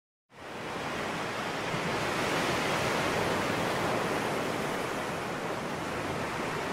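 Steady rush of ocean surf breaking, fading in at the start.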